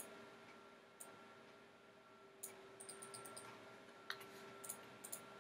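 Faint computer mouse clicks, about ten scattered short clicks, bunched around the middle, over a faint steady hum.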